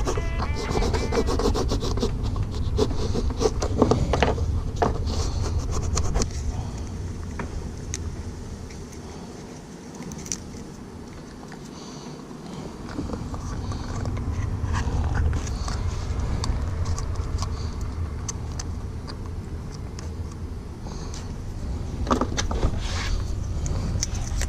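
Handling noises of a stick-on fuel cap cover being fitted to a car's fuel cap: scattered scrapes, rubbing and clicks over a steady low rumble, which dips for a few seconds near the middle.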